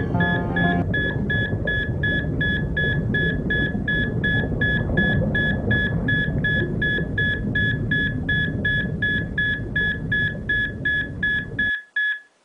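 Electronic performance soundtrack: a high beep repeating about three times a second, like an alarm, over a dense low rumble. Held musical tones die away in the first second, and the whole sound cuts off suddenly just before the end.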